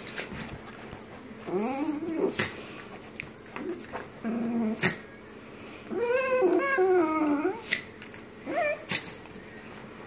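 Two small dogs, one a dachshund, play-fighting: several bouts of growling and whining calls that bend up and down in pitch, with a few short sharp yaps between them.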